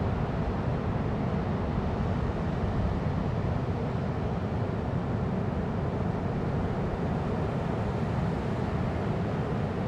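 Ocean waves rolling in, a steady low wash with no separate breaks.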